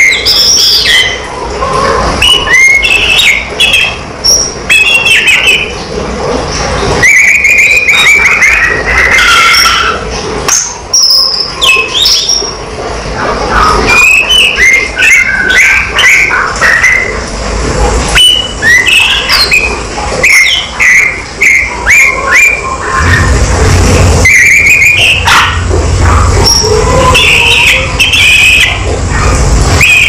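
Male blue-and-white flycatcher (tledekan) singing in its cage: a run of varied whistled phrases and chirps in bouts of a second or two with short gaps between them. A low rumble sits under the song in the last several seconds.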